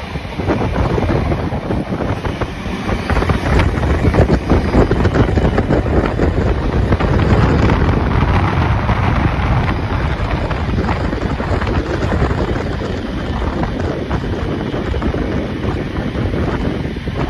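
Strong wind buffeting the microphone over the steady rumble of a moving steam-hauled train.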